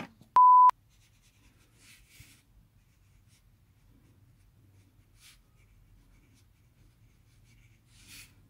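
A short, loud steady beep about half a second in, then the faint strokes of a water brush pen's bristle tip writing on textured hanji-style paper, with a few brief scratchy sweeps.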